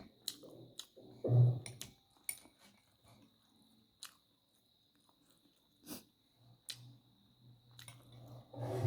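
Close-miked eating sounds: chewing with sharp, scattered mouth clicks and smacks, and short low hums about a second and a half in and again near the end.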